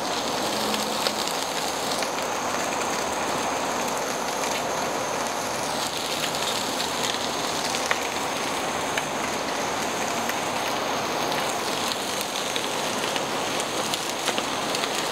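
Ribeye steaks sizzling over hot charcoal in a kettle grill: a steady hiss with scattered small crackles and pops from the coals flaring up under the meat.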